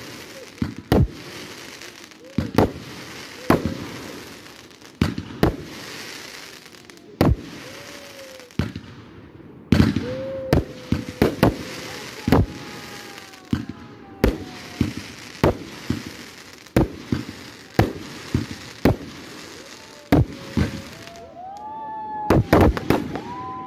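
Aerial fireworks bursting in quick succession: sharp bangs roughly once a second, with a hiss between them and a fast cluster of bangs near the end.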